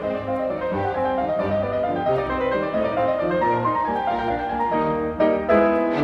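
Background music: a classical-style piece led by piano.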